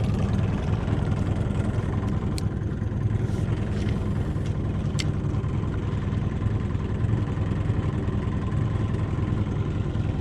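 A boat motor running at a steady speed, a constant low drone. Two faint ticks sound about two and five seconds in.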